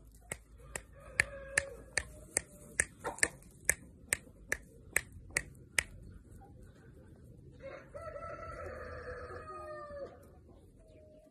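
A run of sharp clicks, about two and a half a second, for the first six seconds. Then a rooster crows once, a call of about two and a half seconds that drops at the end.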